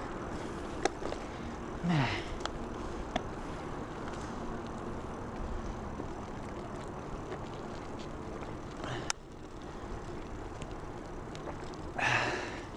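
Steady road and wind noise from a bicycle ride, with a few faint clicks. The rider gives a sighing breath about two seconds in and a heavy breath near the end as he catches his breath.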